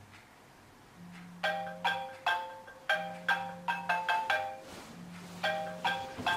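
Smartphone ringing with a marimba-style ringtone: a quick run of bright mallet notes that repeats, starting about a second and a half in. Under it a low buzz comes on for about a second every two seconds.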